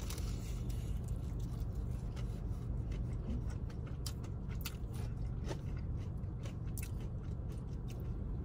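Close-up eating of a crunchy breaded fried chicken tender: a bite, then many short sharp crunches as it is chewed, over a steady low hum.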